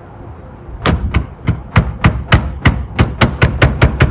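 Infiniti Q50 plastic tail-light housing knocking sharply against the body as it is wiggled back and forth to free its locking tab. The rapid series of about a dozen knocks starts about a second in and runs at about four a second, quickening slightly near the end.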